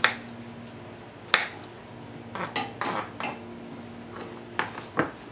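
Kitchen utensils clattering: a few sharp, irregular knocks and clinks of metal cutlery and pans, loudest at the very start and again about a second and a half in.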